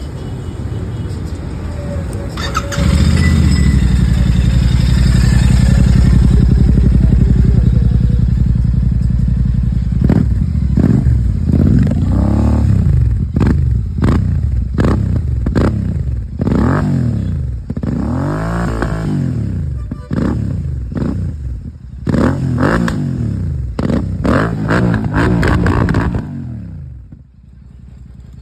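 Royal Enfield Super Meteor 650's parallel-twin engine breathing through an aftermarket Red Rooster silencer, idling loudly, then revved in a string of about a dozen quick throttle blips, each rising and falling. The sound drops away sharply near the end.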